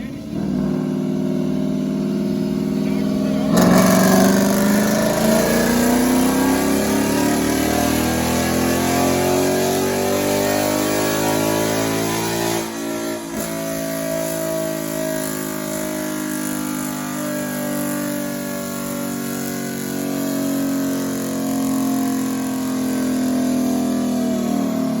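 Ford Coyote 5.0 V8 of a Mustang GT with cat delete, X-pipe and axle-back exhaust, making a wide-open-throttle chassis dyno pull. About three seconds in the throttle opens and the revs climb steadily for about nine seconds, then it lifts off and the engine winds down.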